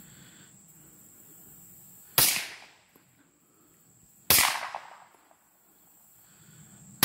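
Two shots from a PSA Dagger 9 mm pistol fitted with a SilencerCo Octane 9 suppressor, about two seconds apart, each a sharp suppressed crack with a short fading tail.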